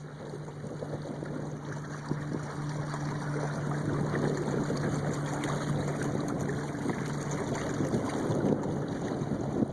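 Water rushing and splashing along a Catalina 22 sailboat's hull, with the steady low hum of its outboard motor that fades near the end.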